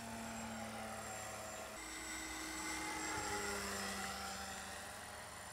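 Electric RC model plane's brushless outrunner motor (Turnigy 35-30C 1100kv) spinning an APC 11x5.5 propeller in flight, a steady whine. The pitch shifts abruptly about two seconds in, and the sound grows louder for a moment a little past the middle as the plane passes low.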